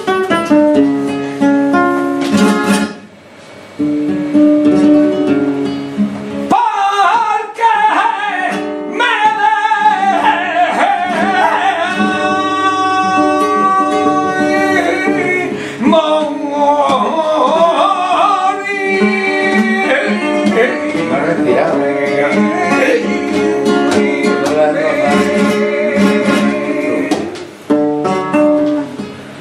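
Flamenco seguiriya: an acoustic flamenco guitar plays alone at first, and after about six seconds a male cantaor's voice comes in, singing long wavering melismatic lines over the guitar accompaniment.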